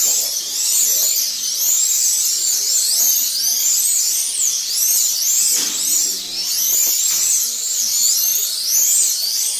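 Several 1/32 Eurosport slot cars racing, their small electric motors whining high and overlapping, each pitch rising and falling over and over as the cars accelerate out of the corners and brake into them.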